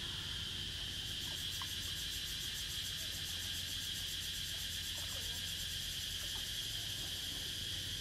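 Insects trilling in a continuous high-pitched drone, joined about a second in by a faster, finer pulsing trill higher up, with a few faint short chirps in the background.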